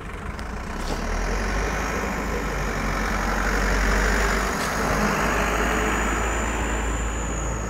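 Medium box truck's engine running as it drives slowly past close by, louder as it comes nearest about four seconds in, then easing off a little as it pulls away.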